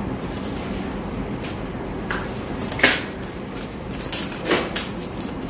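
A handful of short knocks and rustles from people handling things, the loudest just under three seconds in and a few more together near the end, over a steady low hum.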